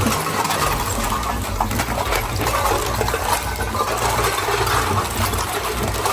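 Industrial shredder running under load: a steady low hum under dense crackling and clatter as material is torn apart.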